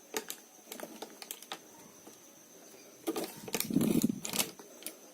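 Handling noise of a mobile phone being pressed onto a sticky gel pad: a few light clicks and taps, then a louder cluster of knocks and rubbing about three seconds in.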